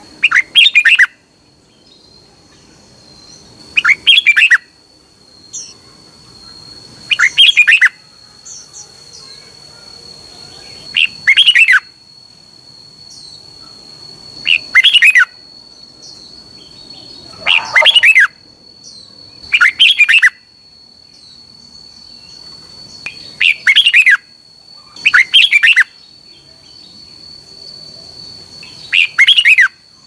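Red-whiskered bulbul singing: about ten short song phrases, each under a second, with pauses of two to four seconds between them, over a faint steady high whine.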